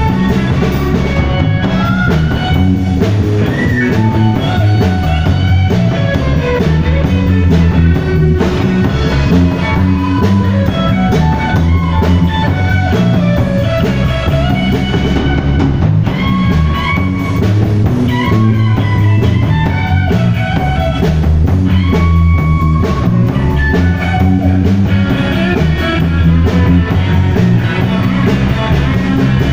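Live rock band playing loud: an electric guitar plays single-note lead lines with bends and slides over a steady drum kit beat.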